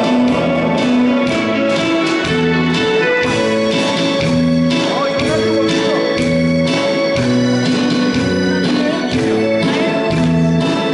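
Backing track of a Korean trot song playing loudly through PA speakers with a steady beat and bass line, with a man's singing voice over it in places.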